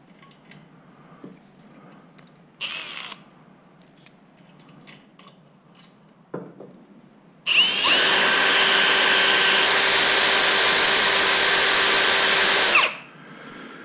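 Cordless drill running at a steady speed for about five seconds from about halfway through, boring a small safety-wire hole in a bolt with a bit that is dull. A short burst of noise comes near three seconds in.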